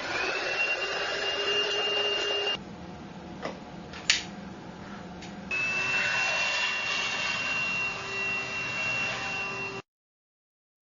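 TINTON LIFE VC812 cordless stick vacuum cleaner motor running with a high whine that rises as it spins up at the start. About two and a half seconds in it drops to a quieter sound without the whine for around three seconds, with a couple of clicks. It then runs at full again and cuts off suddenly near the end.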